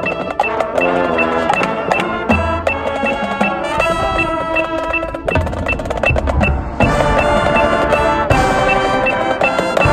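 Marching band playing its show music: brass chords with low brass notes underneath, drums and mallet percussion striking, over a steady high click keeping time at a little under three beats a second.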